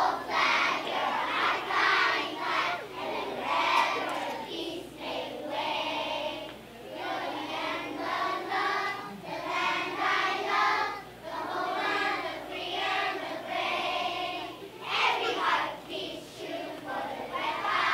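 A large group of young children singing together as a choir.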